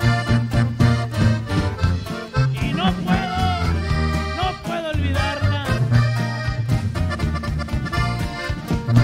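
Norteño band playing an instrumental passage: accordion carrying the melody over sustained tuba bass notes, a strummed twelve-string guitar and a steady drum beat.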